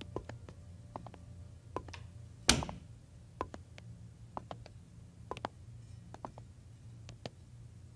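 Hard-soled shoes clicking on a tiled floor as people walk, with one loud thump about two and a half seconds in, over a low steady hum.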